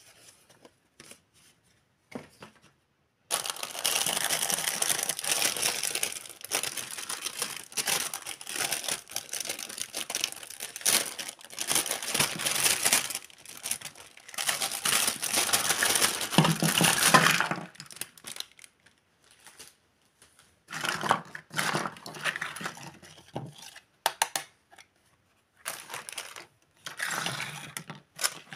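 Clear plastic packaging bag crinkling and rustling as it is opened and the toy tea-set pieces are pulled out. A long stretch of crinkling starts a few seconds in, then shorter bursts follow near the end.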